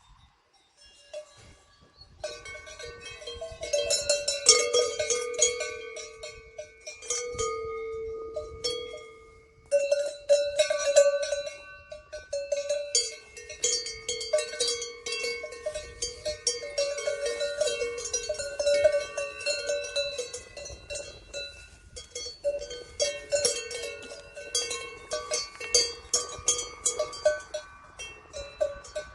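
Several livestock bells of different pitches clanking irregularly, starting about two seconds in.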